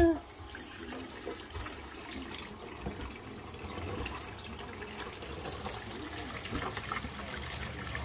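Kitchen faucet running steadily into a stainless steel sink, the stream splashing on the metal basin.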